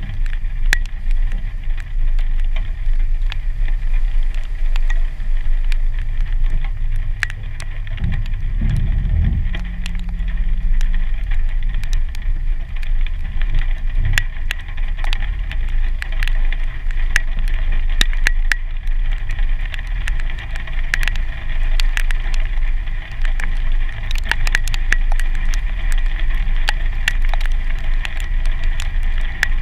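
2015 Jeep Wrangler Sport's 3.6-litre V6 running steadily as it creeps through deep trail water, with a brief louder low rumble about eight seconds in. Many sharp irregular ticks of raindrops hitting the glass sound over it.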